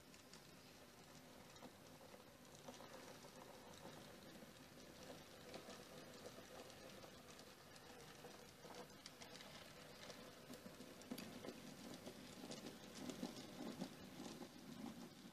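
H0e-scale model Forney tank locomotive pulling a short train along narrow-gauge track: faint motor hum with light, rapid clicking of the wheels over the rails, a little louder near the end.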